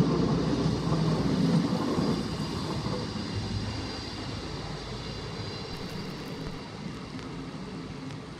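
Stadler GTW 2/6 (ATR 115) diesel railcar running past over a bridge. Its engine hum and running noise are loudest at first and fade steadily as it moves away.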